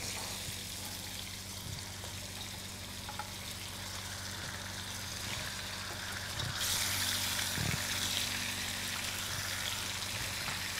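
Raw chicken pieces sizzling as they fry in hot oil in a wok. The sizzle grows louder about six and a half seconds in as more pieces go into the pan.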